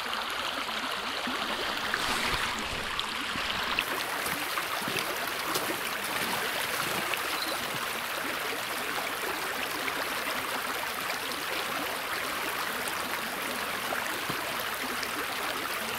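Shallow stream running steadily over stones.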